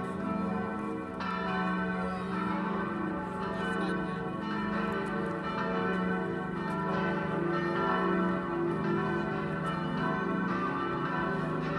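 Four swinging bronze church bells ringing together as a partial peal: two bells cast in 1736 tuned to d' and e' and two cast in 2013 tuned to F-sharp' and a'. Their strikes overlap in an unbroken ringing, over a sustained low hum.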